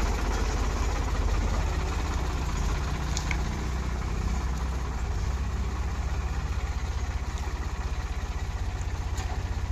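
Eicher tractor's diesel engine running at a steady idle, a low, even chugging.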